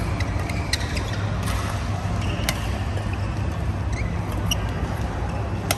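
Doubles badminton rally: several sharp racket hits on the shuttlecock and a few short shoe squeaks on the court mat, over a steady low hum.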